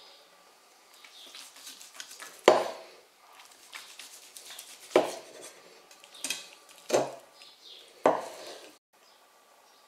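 Carving knife slicing through a grilled goat leg and knocking against a wooden cutting board: four sharp knocks with lighter scraping and cutting between them. The sound cuts off abruptly near the end.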